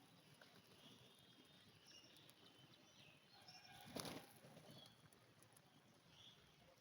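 Faint, scattered bird chirps over quiet outdoor background, with one short, louder noisy burst about four seconds in.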